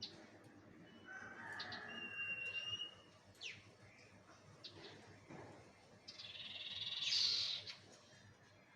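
Birds calling: short clear whistle notes, quick down-slurred chirps, and a louder run of rapid chirping about three-quarters of the way through.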